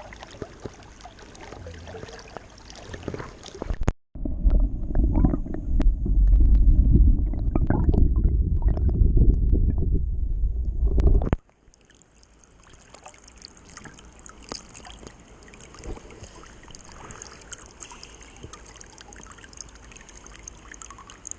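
River water rushing and gurgling. About four seconds in, a loud, muffled low rumble of water takes over for about seven seconds and cuts off abruptly. The lighter rush of the river then returns, with a steady high hiss over it.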